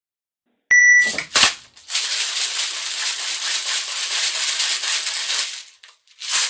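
A short beep, then an Odin speedloader worked fast for about four seconds: a dense, continuous rattle of plastic BBs being pushed into an airsoft magazine. A loud thump near the end.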